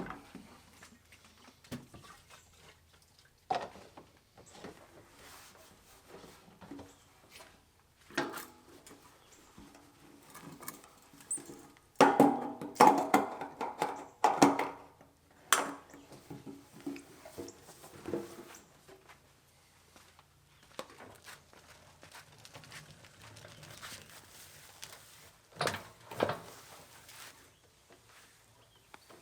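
Handling noises: scattered clicks, knocks and rattles of hands working on equipment, with a louder run of rattling about twelve seconds in that lasts a few seconds.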